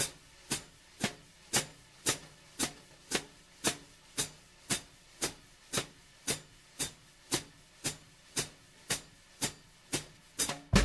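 Jazz brushes sweeping circles on the snare drum in an up-tempo time feel, with the hi-hat pedal closing on two and four in sharp, even chicks about twice a second. It ends on a louder hit that rings on low.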